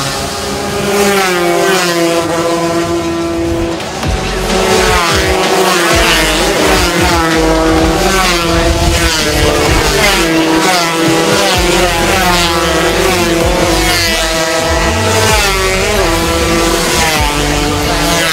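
A pack of 200 cc racing motorcycles at full throttle, several engines wailing at once, their pitch repeatedly climbing and stepping back down as they shift gears.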